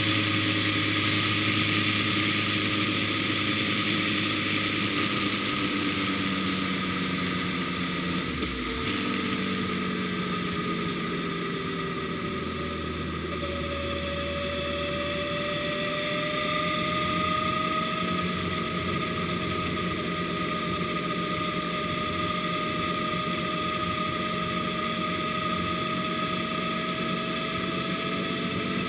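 A car's engine and road noise heard from inside the cabin while driving: the engine note falls over the first several seconds as the car slows, then slowly rises again as it picks up speed. A loud hiss of wind and road noise stops about nine and a half seconds in, and there is a single thump just before that.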